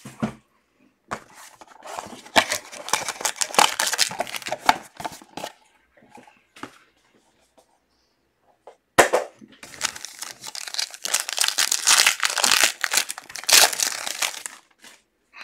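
Foil wrapping of a sealed trading-card box and pack being torn open and crinkled by hand, in two stretches: from about a second in to about midway, then again from about nine seconds until near the end.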